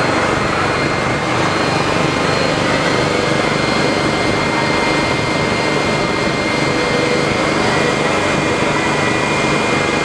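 A small motor running steadily, a constant drone with a thin steady whine above it.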